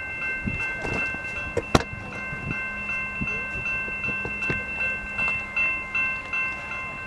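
An approaching freight train's horn sounding from a distance as a steady chord of high tones, over a faint low hum. Wind knocks on the microphone and one sharp click come through about two seconds in.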